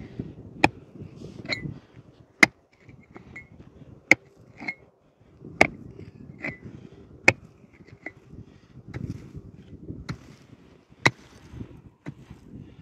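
Small pickaxe striking rocky, stony soil in repeated blows, a dozen or so sharp clinks roughly one a second, some with a brief metallic ring.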